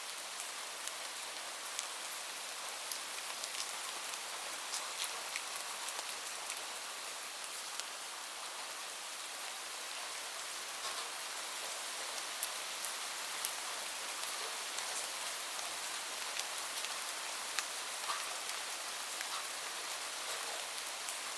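Steady rain falling, an even hiss with many separate drops ticking on a hard surface scattered through it.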